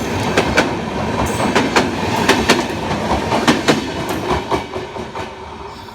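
Express train coaches passing at speed, their wheels clattering over rail joints in fast, irregular clicks over a steady rush of noise. The clatter fades over the last couple of seconds.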